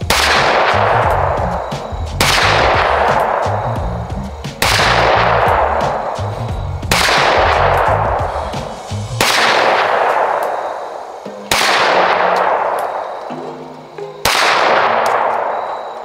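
Springfield Hellcat 9mm micro pistol with compensator firing seven slow, evenly spaced single shots, about two and a half seconds apart, each shot loud with a long echoing tail.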